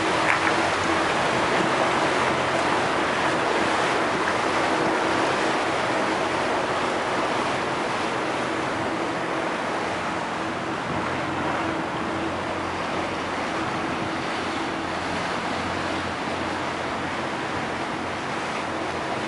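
Water taxi's motor running steadily with a steady hum, under the rush of water along the hull and wind on the microphone as the boat moves along a canal.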